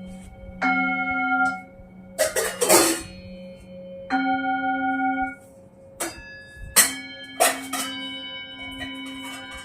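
Bell-like chiming tones, each ringing about a second with several pitches at once, repeated a few times, with short noisy bursts between them.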